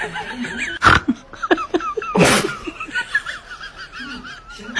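Laughter with high, quickly wavering sounds, broken by a sharp burst about a second in and a louder, longer noisy burst a little after two seconds.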